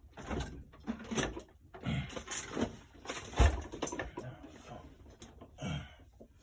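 Handling noises on a repair bench: irregular knocks, clatters and rustles of tools and parts being moved, with one louder thump about three and a half seconds in.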